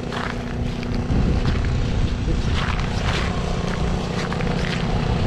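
Snow blower's small engine running steadily.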